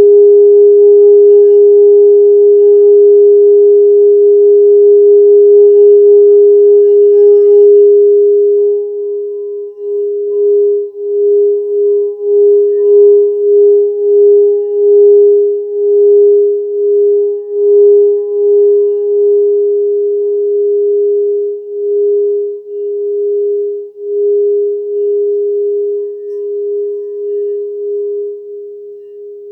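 Crystal singing bowl sounding one steady, pure tone with a faint higher overtone. About eight seconds in, the tone begins to pulse and wobble, and it slowly fades.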